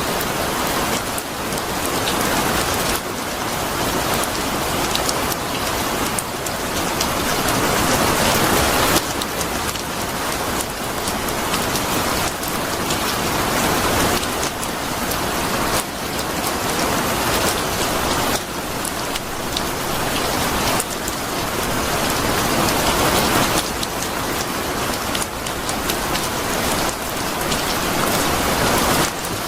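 Steady heavy rain falling on a surface, a dense even hiss of drops that slowly swells and eases every several seconds, dropping back sharply a few times.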